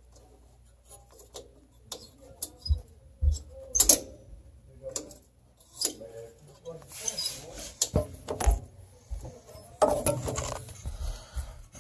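Hands working inside a pellet stove's cabinet: irregular small metal clicks, knocks and rustles among the wiring and sheet-metal parts. There is a sharper knock about four seconds in and again about eight seconds in, and the handling gets busier near the end.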